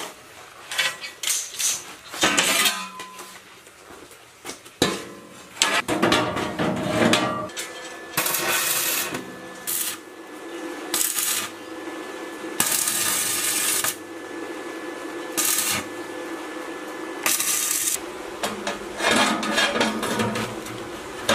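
Steel plate and metal pieces clanking and clinking as they are handled, then a series of short arc-welding bursts, a crackling hiss lasting a second or so each, from tack welds on a steel frame; more metal clanks near the end.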